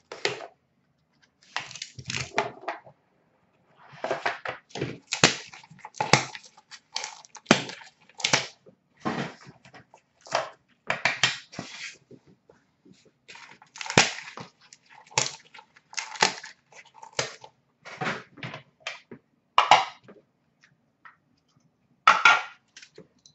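Hands opening a box of hockey trading cards: irregular bursts of crinkling and rustling packaging, with clicks and knocks of hard plastic card holders being handled.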